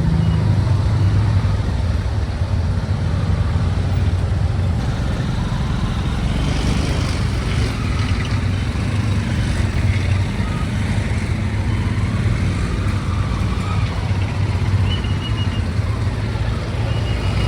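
Road traffic: the engines of cars and motorcycles running, a steady low hum.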